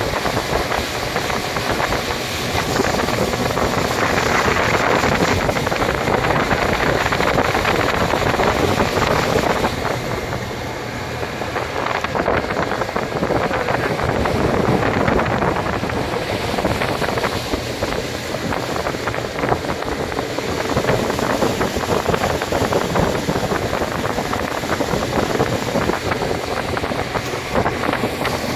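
Speedboat outboard motor running at speed, with water rushing from the hull and wake and heavy wind buffeting the microphone. The noise eases for a moment about ten seconds in.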